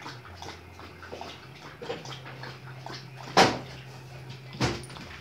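Someone handling things at the kitchen counter and refrigerator: scattered small clinks and knocks, then two loud sharp bangs, one a little past three seconds in and another about a second later, over a steady low hum.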